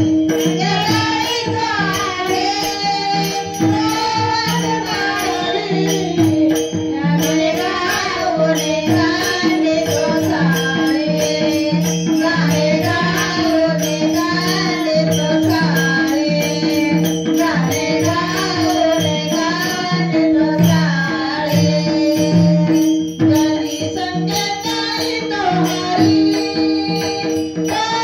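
Marathi bhajan music: a wavering melody over a steady held drone, with small hand cymbals jingling a fast, even beat and drum strokes underneath.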